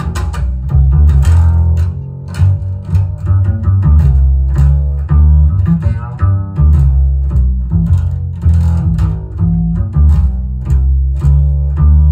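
Recorded jazz double bass played pizzicato, a run of deep plucked notes, played back over large hi-fi loudspeakers.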